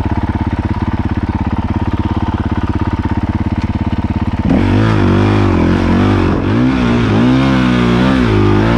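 Honda CRF450L single-cylinder four-stroke dirt bike engine running steadily at low revs. About four and a half seconds in it gets louder and revs up and down as the bike is ridden.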